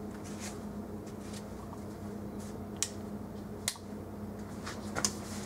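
Low steady electrical hum with a few sharp clicks; the strongest click, a little past halfway, is the neon sign's switch turning it off.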